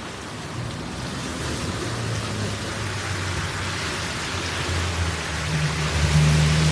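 Steady rush of muddy floodwater, with an off-road SUV's engine running low underneath it and growing louder about five seconds in.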